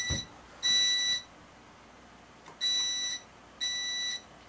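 Fire alarm speaker strobe sounding a high-pitched evacuation tone in the temporal-three pattern: half-second beeps in threes, with a pause of about a second and a half between groups.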